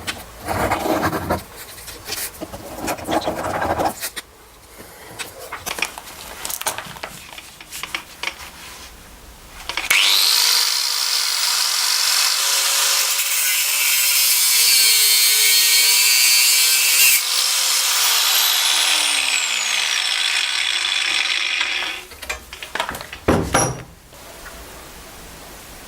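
Irregular rubbing and scraping strokes of hand work, then a small electric power tool spins up with a rising whine. It runs steadily for about twelve seconds, then winds down with a falling pitch. A few knocks follow near the end.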